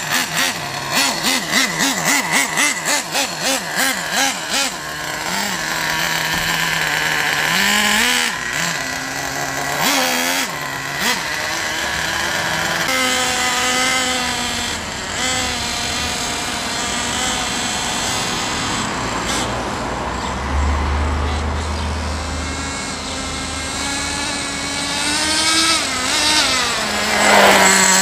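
Nitro glow engine of a Traxxas Jato RC stadium truck, idling with a rhythmic pulsing for the first few seconds, then revving up and down as the truck is driven away. It gets loud near the end as the truck comes back close.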